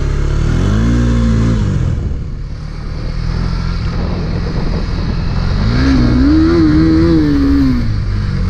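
KTM Duke motorcycle engine riding off-road on a dirt track, revving up and easing off twice: a short rise about a second in, then a longer rise held for about two seconds before it drops near the end.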